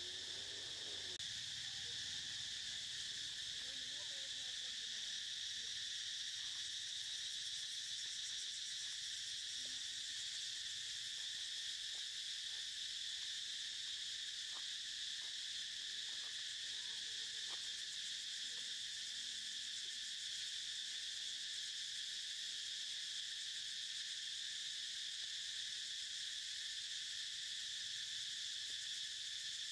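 Steady chorus of insects: a continuous, even, high-pitched buzz, with a few faint brief calls and ticks beneath it.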